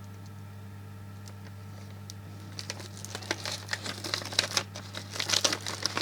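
Small plastic component bags crinkling as they are handled, starting about halfway through and getting busier towards the end, over a low steady hum.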